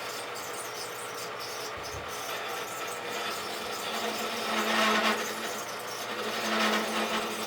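Rockwell wood lathe running with a steady hum while a turning tool cuts the spinning wooden bat blank, the cutting noise swelling in passes at about five and about six and a half seconds.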